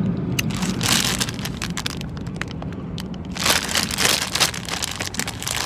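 Bubblegum being chewed close to the microphone: wet smacking and clicking, with a cluster of smacks about a second in and a busier run of them from about three and a half seconds on, over a low steady hum.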